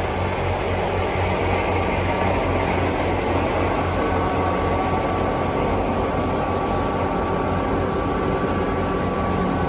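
Fiat 480 tractor's diesel engine running steadily while driving a wheat thresher: a continuous mechanical drone with a throbbing low hum and a thin steady whine from the machinery.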